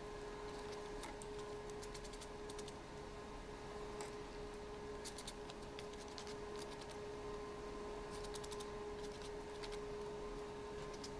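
Sandpaper rubbed in short, quick strokes over the edges of a small laser-cut plywood part, coming in several brief bursts of faint scratching. A faint steady hum sits under it.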